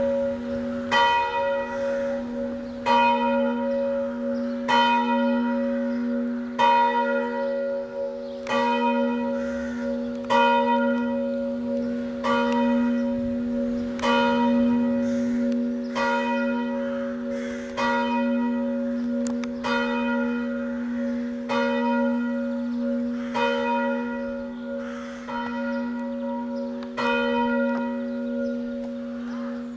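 The bell of St John the Apostle church in Knyszyn ringing for noon: one bell struck evenly by its clapper about once every two seconds, each stroke ringing into the next over a steady low hum.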